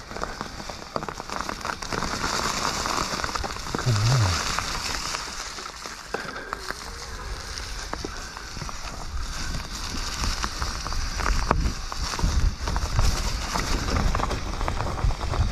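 Mountain bike rolling over a loose, stony trail: the tyres crackle over gravel and small stones and the bike rattles over the bumps, with a heavier low rumble from about halfway on.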